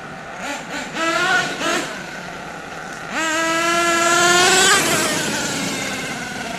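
Nitro engine of a HotBodies Lightning GTX2 twin-engine RC truck revving: a few short throttle blips, then a longer rev about three seconds in whose pitch climbs slightly before the throttle is let off and it fades.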